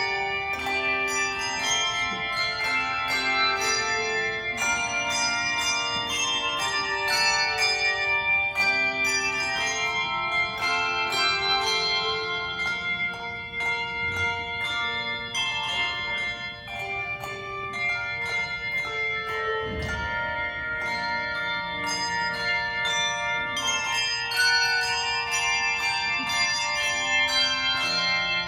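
A handbell choir playing a piece: many tuned handbells struck in quick succession, their notes ringing on and overlapping into chords.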